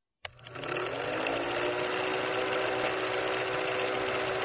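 Film projector running: a click, then a fast, even mechanical clatter with a steady hum that rises a little in pitch as it gets up to speed.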